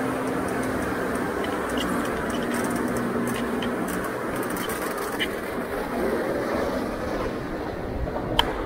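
Inside a gondola cable car cabin rolling slowly through the station: a steady rumble with a low hum from the cabin's carriage running on the station rail and drive wheels, and a sharp clack near the end.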